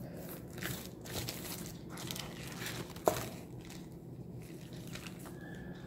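Plastic polythene bag crinkling and paper rustling under hands pressing and handling a wet sheet of paper on it, with one sharp click about three seconds in.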